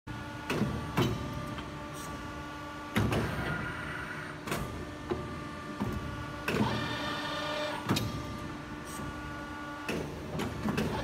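DW50CNC3A2S CNC tube bending machine working through an automatic bend cycle: a steady hum from the hydraulic power unit and servo drives, with repeated sharp clunks and clicks as the hydraulic clamps and bend arm move. A rising servo whine comes in about two-thirds of the way through as the axes drive.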